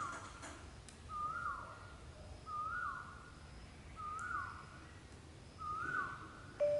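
A bird calling over and over, about every second and a half: the same short whistled note each time, rising briefly, then dropping away.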